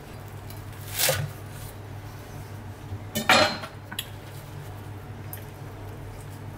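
Hands handling food on a wooden cutting board: a short knock about a second in, then a louder scrape and clatter around three seconds in as lettuce scraps are gathered off the board, with a small click just after. A steady low hum sits underneath.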